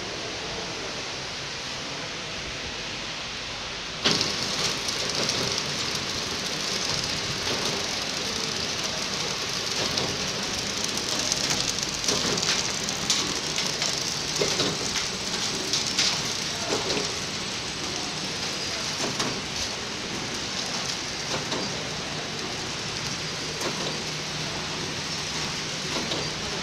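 Horizontal flow-wrap packing machine running, a steady mechanical clatter and hiss with light clicks recurring every second or so. It gets suddenly louder about four seconds in.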